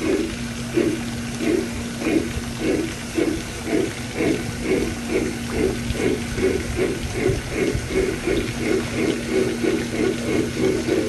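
Sound unit of a Bachmann three-truck Shay garden-scale locomotive chuffing, the chuffs quickening from about one and a half to about three a second as the train picks up speed, over a steady low hum.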